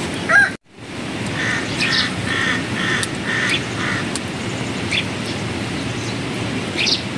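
An animal calls about six times in a quick run, roughly two calls a second, with a few short rising chirps before and after, over a steady background hiss.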